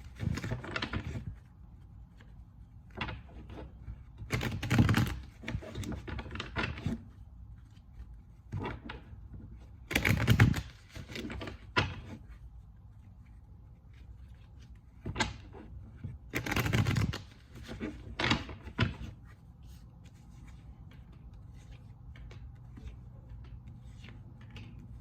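Tarot cards being shuffled and handled in several short, sharp bursts, with softer taps and flicks of cards between them and toward the end.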